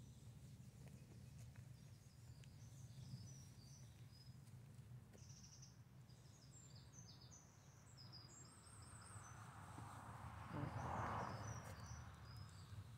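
Faint outdoor ambience: small birds chirping in short, high notes on and off, over a low steady rumble. Near the end a swell of rushing noise rises and fades, the loudest thing here.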